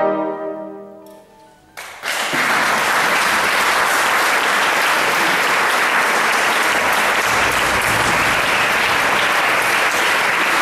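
Final chord of a wind ensemble (clarinets, French horns, bassoon) fading away into the hall's reverberation, then, after a moment's quiet, audience applause breaking out about two seconds in and continuing steadily.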